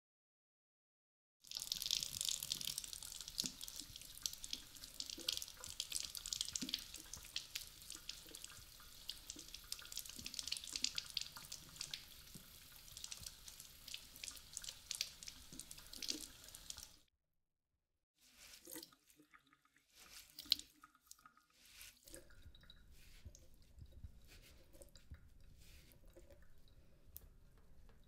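Kitchen tap water running over a vacuum's soft roller brush bar as it is rinsed by hand, for about fifteen seconds, then cut off suddenly. Afterwards faint drips and small knocks as the wet brush bar is handled and shaken, with one sharp click.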